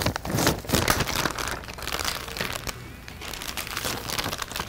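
Plastic MRE ration pouches crinkling and rustling as they are handled and torn open, with a brief quieter lull about three seconds in.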